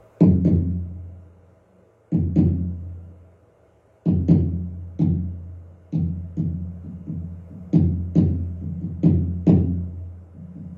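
Buk barrel drum of the pansori accompaniment struck in a rhythmic pattern, each stroke a sharp hit with a low ringing tail. It begins with two widely spaced pairs of strokes, then the strokes come faster from about four seconds in, setting up the rhythm for the next sung passage.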